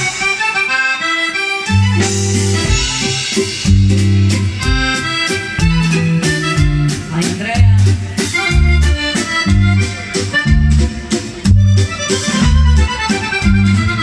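Accordion-led dance music with a steady beat and a moving bass line. The bass and beat drop out for about a second near the start, then come back in.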